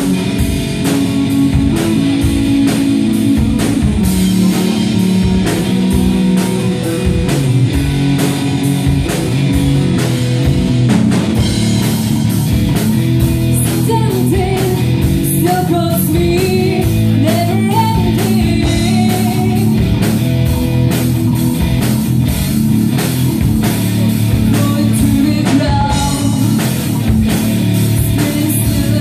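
Live rock band playing: distorted electric guitar, bass guitar and a Yamaha drum kit keeping a steady driving beat. A female voice comes in singing about halfway through.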